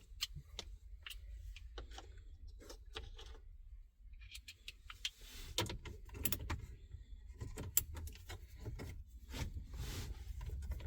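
Light metallic clicks, taps and rattles at irregular intervals from the removed head unit's metal mounting cage and its screws being handled and worked on, over a low steady hum.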